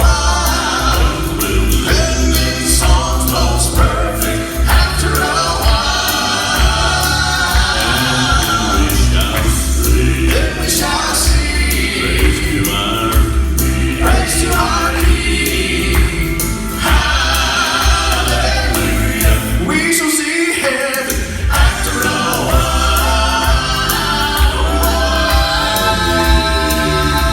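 Gospel vocal quartet singing in harmony over a steady bass accompaniment; the bass drops out briefly about twenty seconds in.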